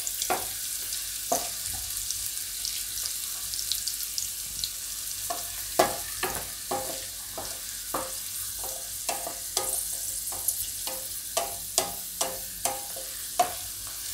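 Whole garlic cloves, cumin seeds, bay leaves and dried red chillies sizzling in hot oil in a kadai as the garlic browns for a tempering. A spatula stirs them and knocks against the pan, the knocks coming thick from about five seconds in.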